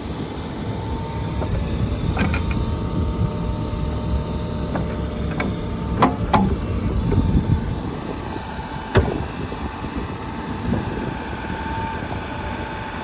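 Case 590 Super N backhoe's engine running steadily with a thin hydraulic whine, while the hoe is worked; several sharp metallic clunks sound about 2, 5 to 6.5 and 9 seconds in.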